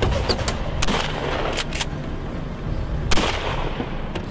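Pump-action shotgun firing: a string of sharp gunshot reports, several close together in the first two seconds, with the loudest about three seconds in.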